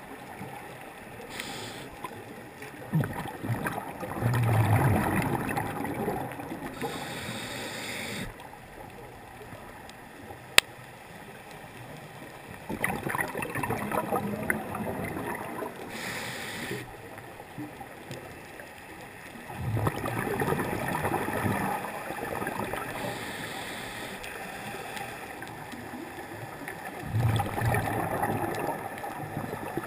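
Scuba diver breathing through a regulator, heard through an underwater camera housing: a short hiss on each inhalation, then a few seconds of bubbling on each exhalation, about four breaths. A single sharp click comes about ten seconds in.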